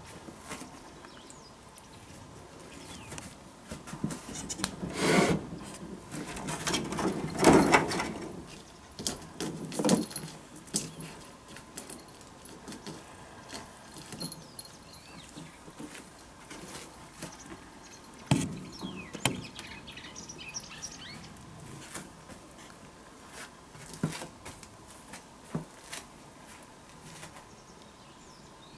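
A cat pawing and scratching at a wooden window frame, making irregular scrapes, rattles and knocks. The loudest bursts come in the first ten seconds, with a sharp knock a little past halfway and lighter scrapes after.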